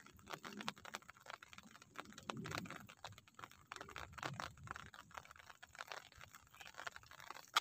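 Light rain: scattered drops tapping close by, faint and irregular, with one sharper click near the end.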